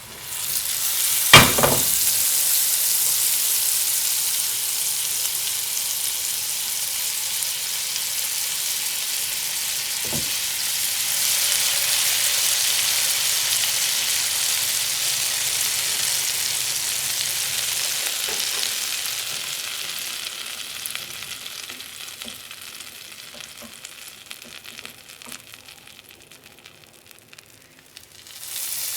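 Food frying in hot oil: a steady, high sizzle. A sharp knock about a second in and a smaller one around ten seconds in. The sizzle dies away over the last several seconds.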